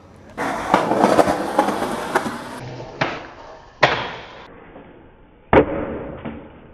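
Skateboard wheels rolling on concrete for about two seconds. Then come a couple of sharp board cracks and a short grind along a metal handrail. About five and a half seconds in, the board slams down hard on the concrete, followed by a few smaller knocks.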